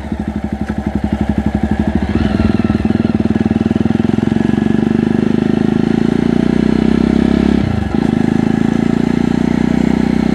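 Jawa Perak's single-cylinder engine pulling hard on the move, its exhaust open with the dB killer removed. The firing pulses quicken as the revs build, then the revs dip briefly about eight seconds in before the engine pulls on.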